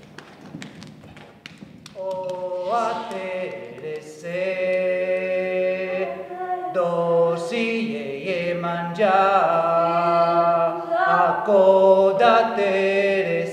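Soft taps and clicks, then about two seconds in several voices begin a chant-like song in parts. The notes are held long, some slide between pitches, and the singing grows louder in the second half.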